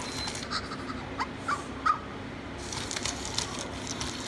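Battery-powered toy puppy, just switched on, giving three short electronic yips through its small speaker between about one and two seconds in.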